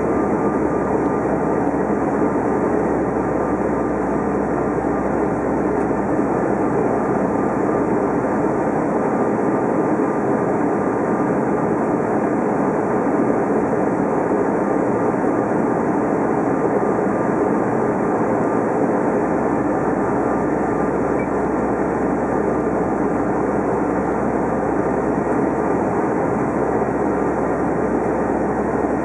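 Steady in-cabin noise of a Bombardier CRJ700 regional jet on approach: the rear-mounted GE CF34 turbofans and rushing airflow, with a faint steady whine. The deepest rumble eases for about ten seconds midway.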